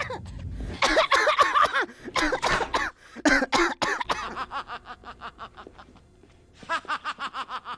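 A cartoon character's voice coughing and sputtering, then breaking into quick, regular gasping pants that fade away and start again near the end.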